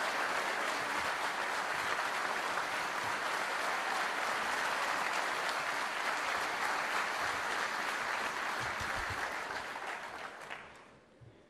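Large audience applauding steadily, a dense mass of clapping that dies away near the end.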